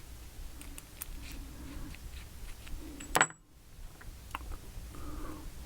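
Small metallic clicks and taps of lock parts being handled and fitted together, with one sharp click about three seconds in.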